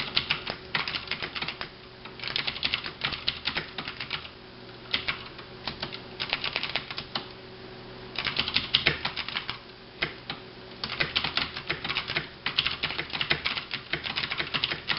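Typing on a KBtalKing Pro mechanical keyboard with clicky Cherry MX Blue switches, typed lightly without bottoming out the keys. The clicks come in fast runs of a second or two with short pauses between words.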